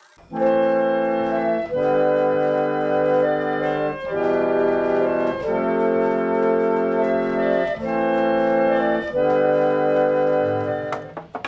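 Chicago Cottage Organ Co. reed organ (pump organ), its case off, played as six sustained chords, each held one to two seconds. A click near the end as the last chord stops.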